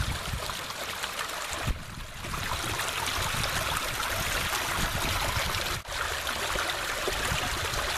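Pond water rushing steadily out through a washed-out trench in an earthen dam, a stream of noise that dips briefly twice. The flow is strong because the drainage pipe has been pulled and the pond is draining through the breach.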